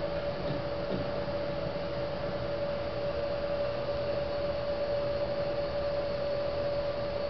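Steady equipment hum: one constant mid-pitched tone over an even hiss, from the pressure-calibration rack while it holds a regulated pressure.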